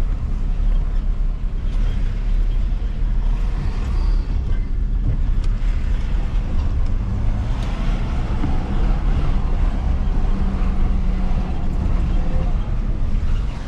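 Moving car's engine and tyre noise, a steady low rumble.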